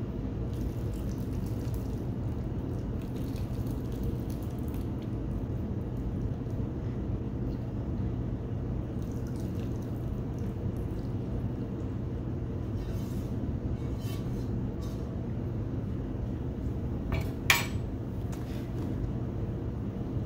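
Broth poured from a frying pan into plastic meal-prep containers, with light clinks of cookware and utensils over a steady low hum. One sharp clink, the loudest sound, comes about three-quarters of the way through.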